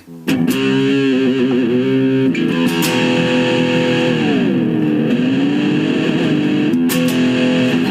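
Yamaha SE350H electric guitar played through a small Roland Micro Cube amp: a held chord with a wavering vibrato, then about four seconds in the whole chord dips smoothly in pitch and comes back up, as from the Floyd Rose-style tremolo arm, and rings on.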